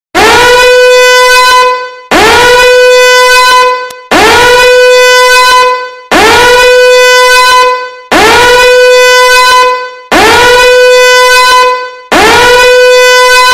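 Time's-up alarm: a loud, horn-like blast about two seconds long, repeated seven times, one every two seconds. Each blast starts with a quick upward swoop in pitch and then holds one steady note.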